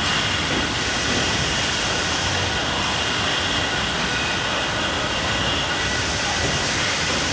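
Steady mechanical noise of an automatic bottle depalletiser and its production hall running, an even hiss with a few faint steady high tones and no separate knocks.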